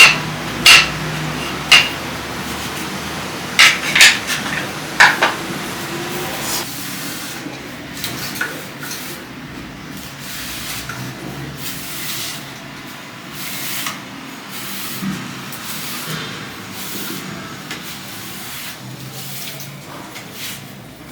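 Household cleaning: a few sharp knocks and clatters of objects being moved and set down in the first five seconds or so, then softer rubbing and wiping strokes.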